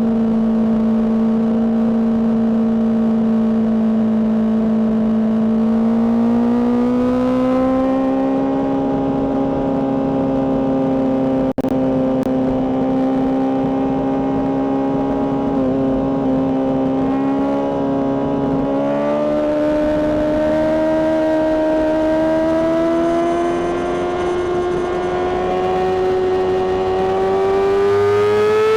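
Honda CBR600RR inline-four sport-bike engine with a Mivv aftermarket exhaust, running at high revs under load: a steady howl that climbs slowly and evenly in pitch, as on a long pull in a high gear. There is a very brief cut in the sound about twelve seconds in.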